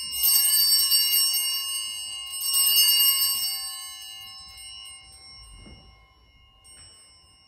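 Altar bells rung at the elevation of the consecrated host. There is one ring just after the start and another about two and a half seconds in, each fading slowly, then a light ring near the end.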